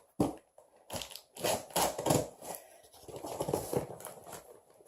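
Shipping packaging being opened and handled by hand: irregular crinkling and crunching of box and wrapping material.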